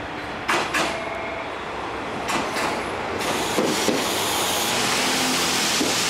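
JR Shikoku train moving along the platform, its wheels clicking over the rail joints in pairs, three times. A rushing rumble builds from about three seconds in.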